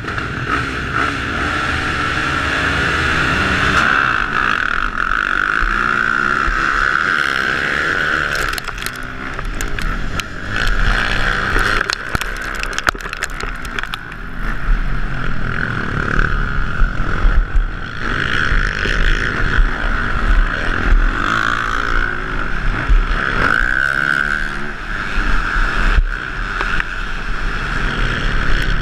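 Motocross bikes launching off the start gate and racing, the rider's own dirt bike engine revving hard and changing pitch as it shifts through the gears, with wind buffeting the helmet-mounted microphone.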